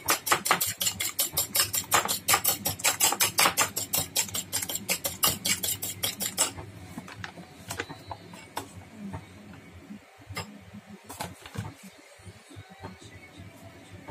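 Metal spoon beating egg in a ceramic bowl, clinking against the bowl about four to five times a second. The clinking stops about six seconds in, leaving a few scattered knocks.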